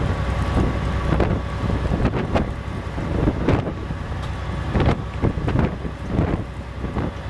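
Gusty wind buffeting the microphone on an open ferry car deck, in uneven surges, over a steady low drone from the ship.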